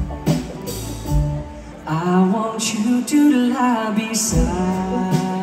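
Live pop band playing, with acoustic guitars, drums and keys, heard from the audience. The band plays lighter at first, then a male lead vocal comes in about two seconds in, and the full band returns near the end.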